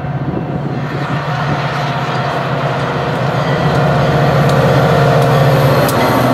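Metra EMD F40PH-2 diesel locomotive with its 16-cylinder 645 engine running as it approaches and passes with a bilevel commuter train, growing louder. Sharp wheel clicks over the rails come in the second half as it goes by.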